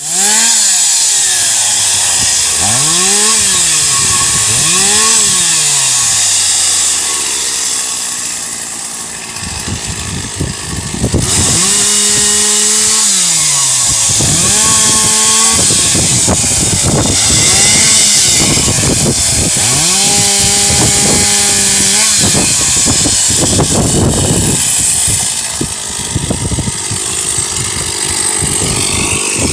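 Chainsaw engine revving up and down several times in the first few seconds, then held at steady high revs with repeated drops in pitch, as when it is cutting into a tree.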